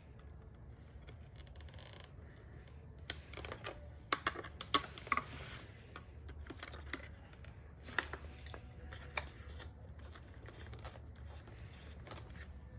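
Hands fitting steering-wheel trim and a wiring harness into place: scattered sharp plastic clicks, taps and rattles, a cluster of them a few seconds in and a couple more later, over a steady low hum.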